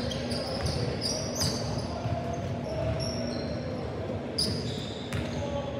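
A basketball bounced repeatedly on a hardwood gym floor as a player dribbles, with short high sneaker squeaks from players moving on the court.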